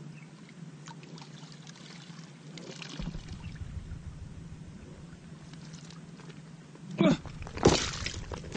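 Water sloshing and trickling as a bucket is worked in a muddy river, with two louder splashes near the end as the bucket is hauled out and water pours from it.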